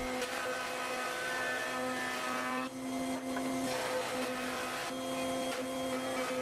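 Table-mounted router running steadily with dust extraction, its raised-panel bit cutting a quarter-sawn sapele panel as it is fed along the fence.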